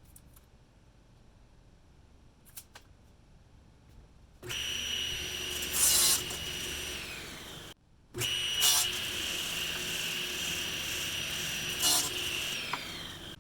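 Electric power saw cutting wood, starting about four and a half seconds in, in two stretches split by a sudden break, with louder peaks as the blade bites. Near the end the motor spins down, its pitch falling.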